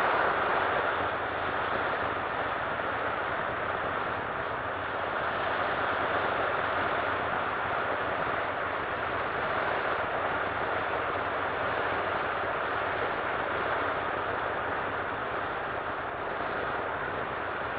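Steady rush of slipstream wind mixed with the noise of a C-47's twin radial engines, heard from the open door of the aircraft in flight.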